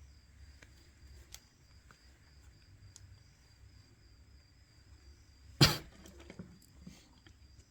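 Small tools and phone parts being handled during reassembly: a few faint clicks, then one sharp tap a little over five and a half seconds in, over a faint steady hum with a thin high whine.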